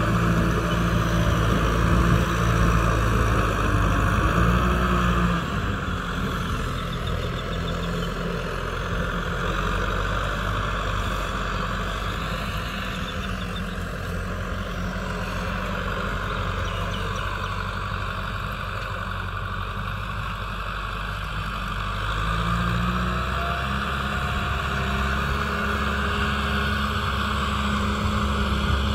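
Kubota M6040SU tractor's diesel engine running steadily under load while it drives a rear rotary tiller through the soil. It is louder for the first few seconds, fades somewhat as the tractor moves off, and grows louder again as it comes back near the end.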